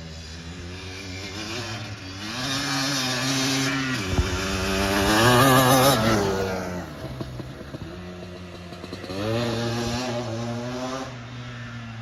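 Yamaha Blaster 200 quad's two-stroke single-cylinder engine with a Pro Circuit exhaust, revving up and down under throttle on a motocross track. It is loudest and highest-pitched about halfway through, falls off, then surges again near the end.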